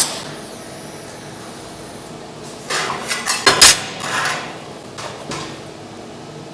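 Metal clanking and knocking: a sharp knock at the start, then a cluster of irregular clanks a few seconds in and a few lighter ones after, over a steady fan hum.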